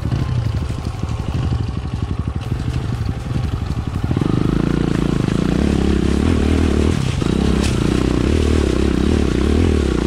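Enduro dirt bike's engine running at low revs with an even chugging beat, then pulling louder and higher from about four seconds in.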